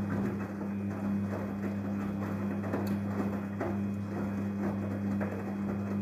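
Daewoo DWD-FT1013 front-loading washing machine in its wash cycle: the drum turns with a steady low hum while wet laundry tumbles and water sloshes inside, with irregular soft knocks and splashes.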